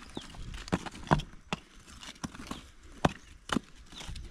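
Loose stones clacking against one another as they are set by hand into a rough road surface: a string of sharp, irregular knocks.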